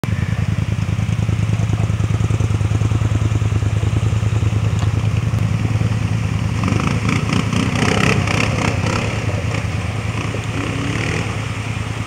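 ATV engine idling close by with a steady low rumble. From about six and a half seconds in, a second ATV fords a rocky creek, water splashing and its engine revving for a couple of seconds, then easing off as it climbs out.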